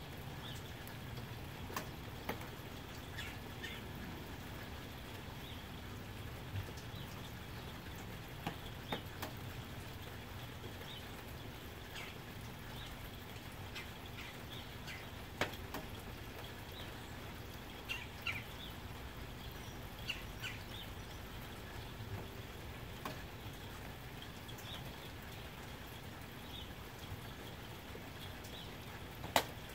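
Soft, steady rain with scattered sharp drips, the sharpest one near the end, and birds chirping faintly in the background.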